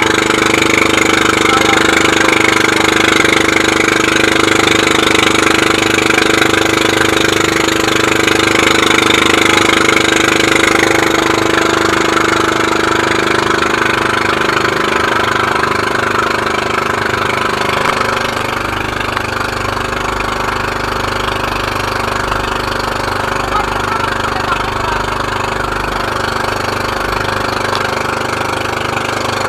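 Engine of an outrigger motorboat running steadily under way, with spray and wind rushing past the hull. The engine note weakens a little partway through and then rises slightly.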